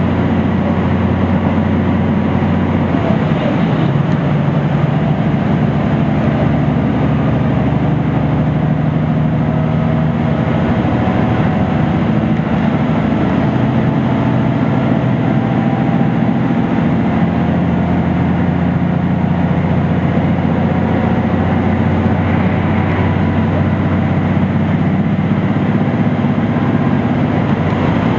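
KiHa 75 diesel railcar running at speed, heard from inside the passenger cabin: a steady diesel engine note under running noise from wheels on continuous welded rail. The engine pitch shifts about 3 seconds in and again around 17 seconds.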